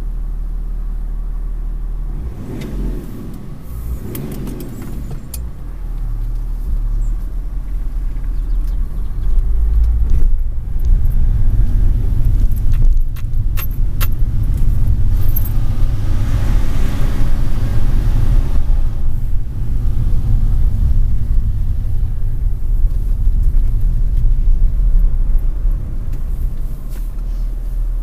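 BMW 330d's straight-six turbodiesel heard from inside the cabin, idling and then pulling hard through first and second gear with wheelspin from the open differential. The engine gets steadily louder, drops briefly about ten seconds in at the shift into second, then stays loud.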